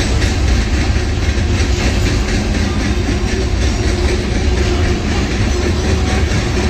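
Freight cars of a CN train rolling past: a steady rumble of steel wheels on the rails.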